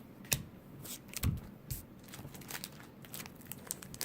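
Baseball cards and foil pack wrappers being handled: scattered light clicks, taps and rustles, with a soft thump about a second in.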